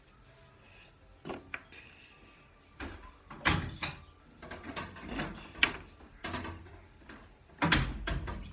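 Handling noises: irregular soft knocks and rustles of hands and a makeup sponge working close to the microphone, several in quick succession from about three seconds in and a louder cluster near the end.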